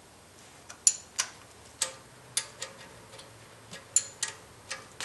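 Irregular sharp metallic clicks, about two a second, from a wrench working on the timing belt tensioner nut as it is loosened.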